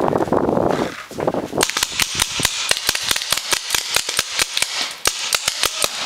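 Paintball markers firing a rapid string of sharp shots, about seven a second, starting about a second and a half in after a brief rushing noise.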